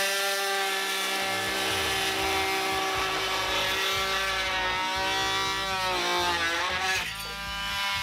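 Cordless oscillating multi-tool fitted with a square drywall slot cutter, running steadily as the blade plunges into drywall. About five seconds in its pitch wavers and sags, and it runs on lower and quieter near the end.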